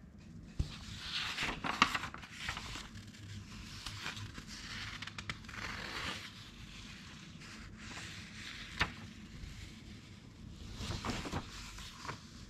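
Pages of an old 1960s paper magazine being turned by hand: three dry rustling sweeps of the paper, with a few sharp crackles and snaps as the pages flip.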